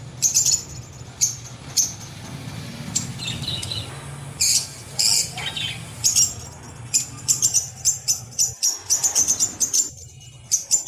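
Small birds chirping in short, sharp, high notes, irregular at first and then quicker, several a second, over a low steady hum.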